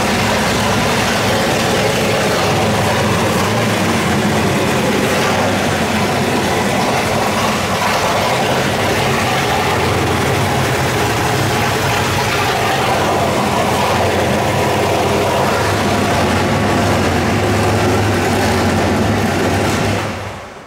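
Built 502 cubic-inch big-block Chevrolet V8 crate engine idling steadily. The sound falls away near the end.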